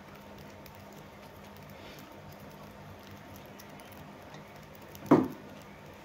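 Budgerigars pecking and husking seed from a steel bowl: a soft patter of small clicks over a low steady hum. About five seconds in, one loud, short thump.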